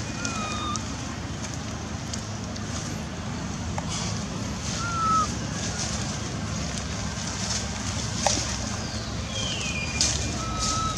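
Outdoor ambience: a steady low rumble of wind or distant background noise, with three short high chirps (near the start, about halfway, and near the end) and a falling whistle shortly before the end.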